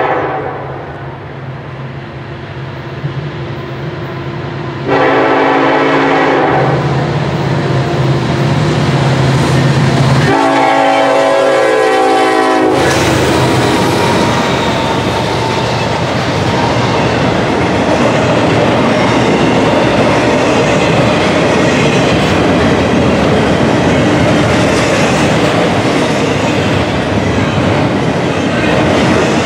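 Norfolk Southern EMD SD70ACE diesel locomotive approaching with its engine rumbling and sounding its horn: the tail of one blast at the start, a short blast about five seconds in, and a longer one at about ten seconds. The horn cuts off as the locomotive passes close by, about thirteen seconds in. After that comes the steady, loud rumble and clickety-clack of the double-stack intermodal cars rolling past.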